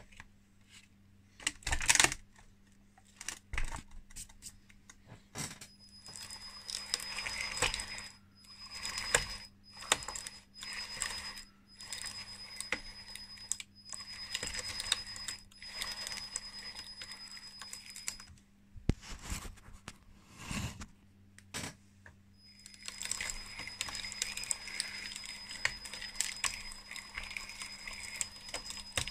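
RC bulldozer model's 3D-printed plastic track chains clattering over the sprockets, driven by electric motors with a steady high whine. The tracks run in short stop-start spurts, then steadily from about two-thirds in. A couple of sharp knocks come in the first few seconds.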